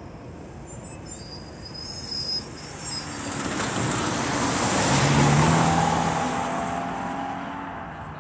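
Safetran crossing gate mechanisms squeaking as the gate arms rise, a high thin squeal over the first two seconds or so. Then a car drives over the crossing, its tyre and engine noise swelling to the loudest point about five seconds in and fading away.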